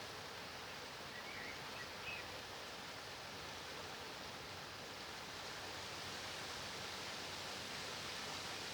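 Rain falling steadily: an even hiss without single drops standing out.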